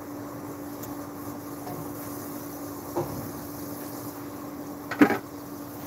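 A steady background hum with one unchanging tone in it, broken by a short knock about three seconds in and a louder knock about five seconds in.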